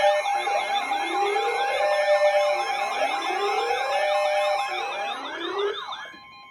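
Several electronic sirens sounding together: repeated rising wails of about a second each, a fast warbling yelp higher up and a steady tone underneath. They fade out about six seconds in.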